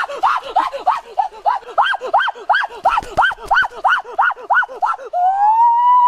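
A boy's voice: quick high laughing cries, about three a second, breaking about five seconds in into one long, loud held yell.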